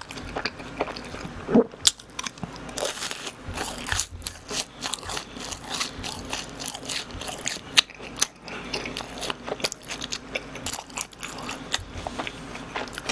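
Close-miked biting and chewing of BHC fried cheese balls: a run of irregular crisp crunches from the fried crust.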